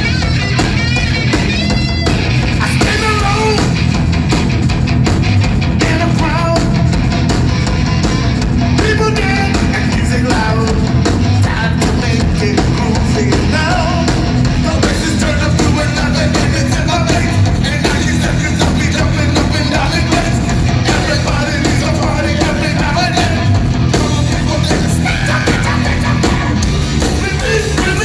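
Live punk rock band playing loudly through a club PA, with singing over the band.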